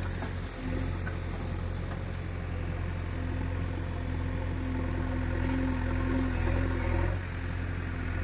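Diesel engine of a JCB 3DX backhoe loader running steadily with a low, even hum.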